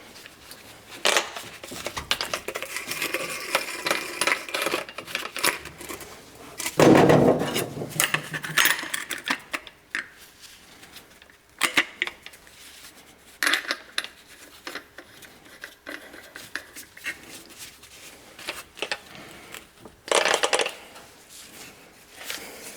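Irregular metallic clinks, knocks and scrapes of a metal rod and hand tools being handled, with one heavier thump about a third of the way in.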